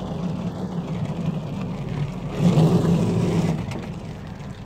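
Riding lawn mower's small engine running as the mower drives by. It gets louder for about a second midway, with a rushing noise, then fades.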